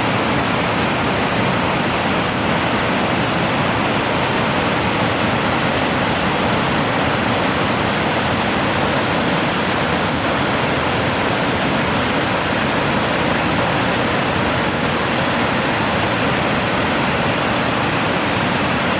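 Waterfall pouring steadily: a loud, even rush of falling water that never lets up.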